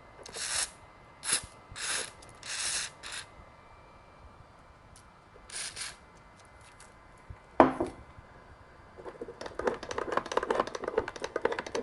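Aerosol contact cleaner sprayed in several short hissing bursts into the joystick gimbals of a Yuneec ST16 remote controller, to clear dirt that makes the sticks respond sluggishly. A sharp knock follows, then a quick run of clicking and rattling handling noise.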